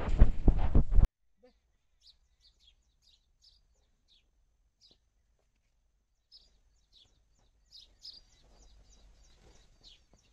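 Faint chirping of small birds: short high chirps scattered through near quiet, coming more often in the second half.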